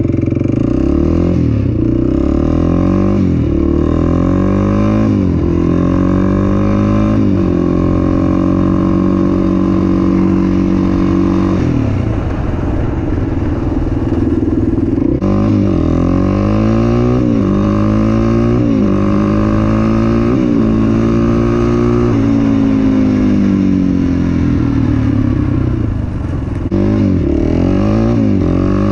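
400-class sport ATV engine under way, revving up through the gears. The pitch climbs and drops back at each shift, eases off for a few seconds in the middle, then climbs through the gears again near the end.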